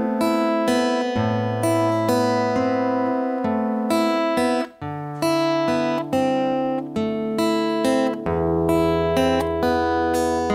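Acoustic guitar fingerpicked, playing an intro riff as ringing picked notes over a held bass: an A chord over the open fifth string, moving to a D chord over the open fourth string about five seconds in, then to an E chord over the open sixth string about eight seconds in.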